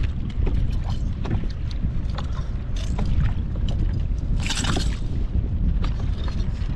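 Wind buffeting the microphone with a steady low rumble, and choppy water slapping against a kayak's hull in many small sharp splashes. A brief louder rush of noise comes about two-thirds of the way through.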